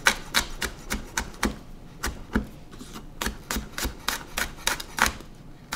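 Chef's knife chopping garlic cloves on a wooden cutting board: a run of sharp, uneven knocks, about four a second, as the blade strikes the wood.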